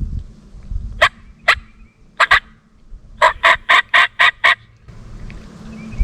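Turkey yelping: two single yelps, a quick pair, then a steady run of about seven yelps at roughly five a second.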